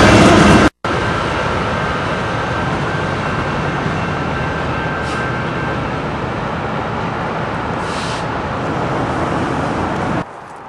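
Steady rolling rumble of a train going by, with two short hisses partway through.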